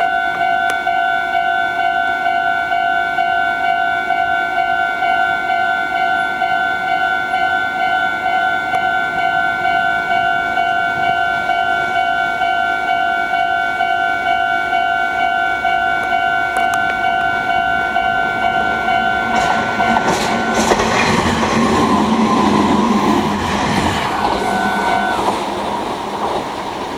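Level crossing warning bells ringing steadily, then about 19 seconds in a Meitetsu express train rushes past with wheel and rail noise lasting several seconds. The bells stop about 25 seconds in as the train clears the crossing.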